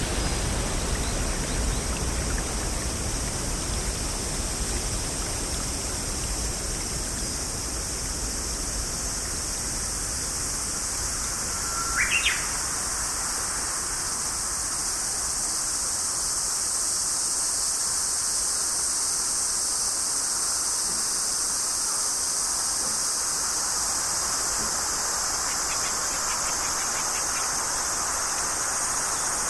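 Nature ambience: a steady high-pitched hiss with a low rumble that fades over the first several seconds. About twelve seconds in, a single short bird chirp sweeps upward.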